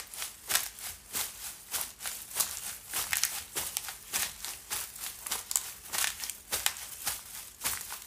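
Footsteps crunching through fallen leaves at a steady walking pace, about two to three crunches a second.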